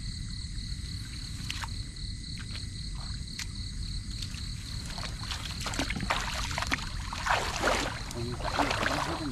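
A few sharp knocks as a bundle of bamboo fishing rods is gathered up, then from about halfway in, steady rustling and swishing of tall reeds and grass being pushed through on foot, over a steady high drone.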